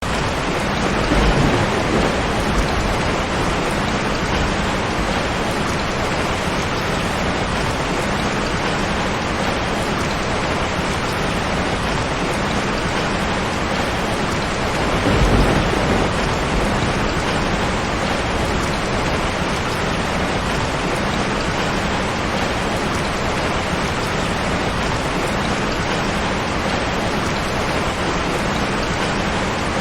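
Heavy rain drumming steadily on a tin roof, with thunder rumbling twice: once about a second in and again around the middle.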